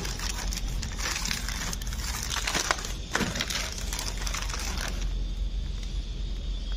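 Plastic packaging crinkling and rustling against cardboard as a sealed plastic document pack is handled and pulled out of a TV box, dense and crackly for about five seconds, then quieter.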